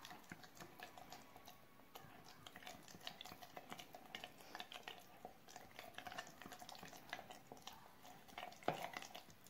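Faint stirring of thick tomato-paste adjika with a wooden spatula in a glass jar: a run of small wet scrapes and clicks, with one louder knock near the end.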